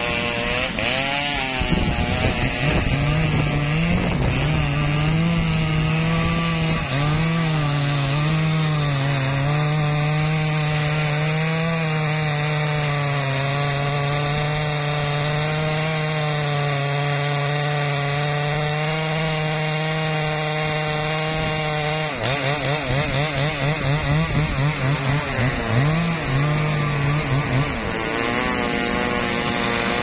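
Two-stroke petrol chainsaw cutting into the trunk of a standing teak tree. It revs up unevenly over the first few seconds, then runs steadily at high revs. About two-thirds of the way through, its pitch rises and falls rapidly for several seconds before steadying again.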